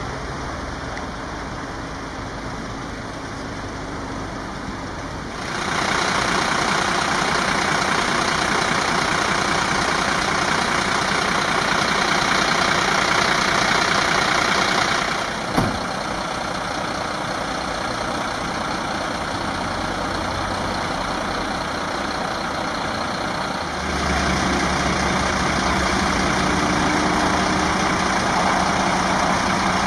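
An engine running steadily under a hiss, in several spliced stretches that change in level, with one sharp knock about halfway through.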